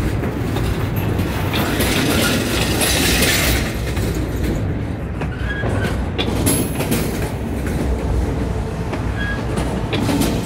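Double-stack intermodal container train's well cars rolling past: a steady rumble of wheels on rail with repeated clacking over the joints. Brief faint wheel squeals come about halfway through and again near the end.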